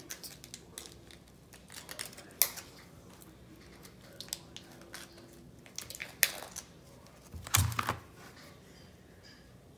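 Scattered clicks, taps and crinkling from slime-making supplies being handled on a table, with a louder cluster of knocks and a thump near the end.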